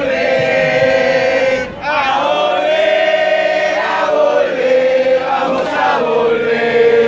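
A crowd singing together in unison, holding long notes, with a short break about one and a half seconds in.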